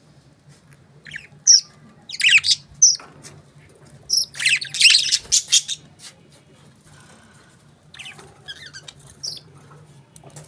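Pet budgerigars chirping and squawking in short bursts, with quiet gaps between them, over a faint steady low hum.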